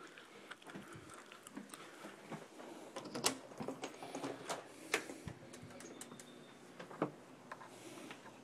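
Scattered light clicks and knocks from footsteps and handling while moving through a doorway, with a few sharper taps about three, five and seven seconds in.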